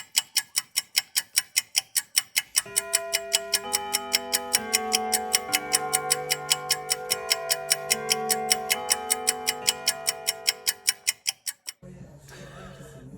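Ticking-clock sound effect, about four ticks a second, with sustained music notes joining about two and a half seconds in. Both cut off together shortly before the end.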